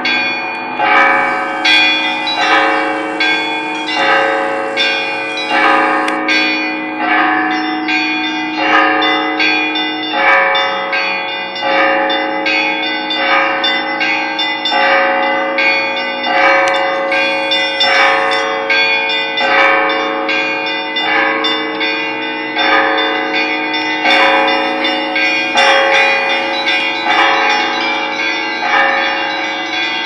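Russian Orthodox church bells ringing a peal (zvon): several bells of different pitches struck in a quick, continuous rhythm over the long ring of the lower bells.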